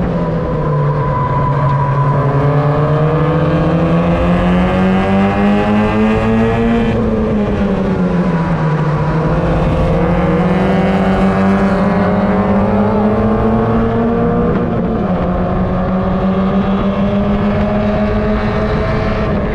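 Mazda MX-5 race car's four-cylinder engine heard onboard, revs climbing under power, falling away about seven seconds in as the driver slows, then climbing again, with a gear change around the middle before it holds near-steady revs.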